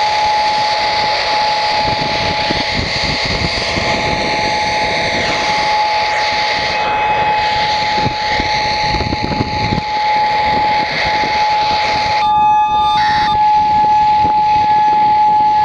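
Federal Modulator 6024 outdoor warning siren sounding one steady, unwavering tone over wind noise on the microphone. The sound cuts out briefly about twelve seconds in.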